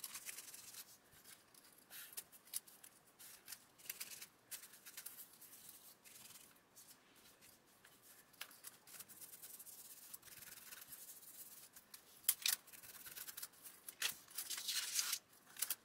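Fingers rubbing and handling a jointed model tank track over paper: soft scratchy rustling with small clicks of the track links moving, busier and louder near the end.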